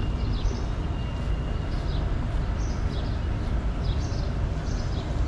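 Birds chirping in short high calls about once a second over a steady low rumble of outdoor city ambience, with a thin high whistle held for the first couple of seconds.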